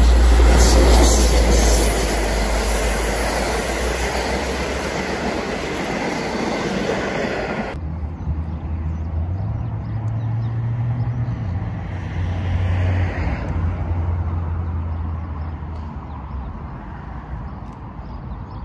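V/Line N-class diesel-electric locomotive hauling a carriage set past at close range, a loud engine rumble with wheels on rail. About eight seconds in the sound cuts to a much fainter low drone of a distant VLocity diesel railcar set. It swells briefly midway, then fades.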